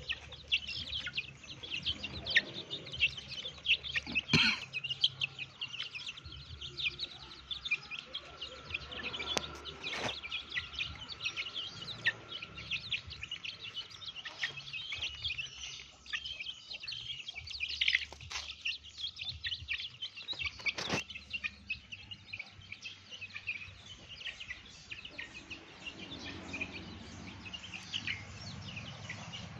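A flock of half-grown chicks peeping and chirping constantly while they feed on scattered grain, with a few sharp clicks now and then.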